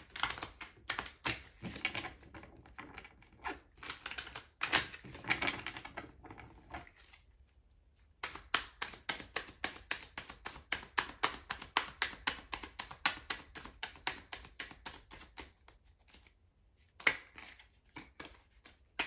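A tarot deck being shuffled by hand: cards sliding and slapping against each other, at first unevenly, then for about eight seconds in a quick, even run of clicks, with a few more taps near the end.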